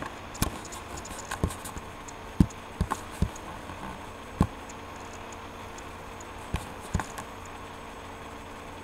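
Irregular, scattered knocks and clicks, about nine in all, the loudest about two and a half and four and a half seconds in, over a steady hum.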